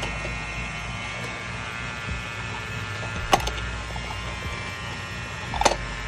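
An electric motor running with a steady hum, with two sharp clicks about three and a half and five and a half seconds in, from handling the brass manifold gauge set and its valves.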